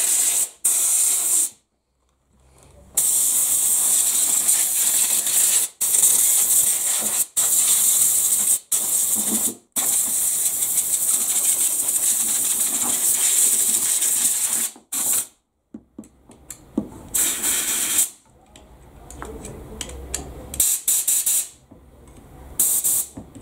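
Compressed-air blow gun hissing in sharp on-off blasts, one lasting about five seconds and the rest a second or so, as a motorcycle fuel pump assembly is blown clean. The blasts grow shorter and fewer in the second half.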